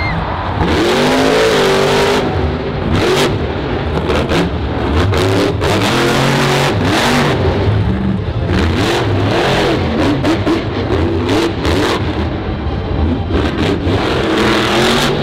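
Monster truck engine revving hard on a run over dirt jumps, its pitch rising and falling again and again, with many sharp cracks through it.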